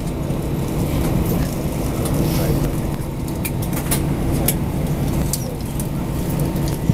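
Cabin noise inside an Airbus A320-214 taxiing: the CFM56 engines at idle give a steady hum with low tones, with scattered small clicks and rattles over it.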